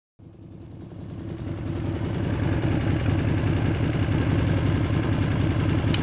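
Motorcycle engine running, growing louder over the first two seconds as it comes closer, then steady until it cuts off abruptly.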